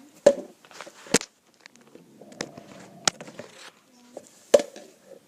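Sharp, separate clicks and knocks of small hard game pieces being tapped and set down on a board, about six in five seconds, with faint rustling of handling in between.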